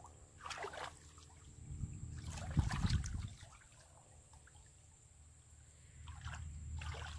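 Hands splashing and sloshing in shallow muddy water while groping along the bottom for fish, in three bouts: one just after the start, the loudest a couple of seconds in, and another near the end.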